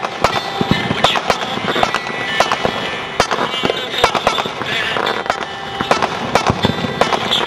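Fireworks display: many sharp bangs a second from exploding shells, over continuous crackling.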